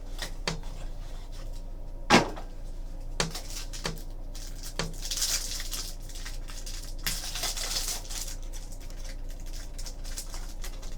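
Handling of a trading card box and its packaging: a few sharp clicks and knocks, the loudest about two seconds in, then two stretches of high rustling as wrapping and cards are handled.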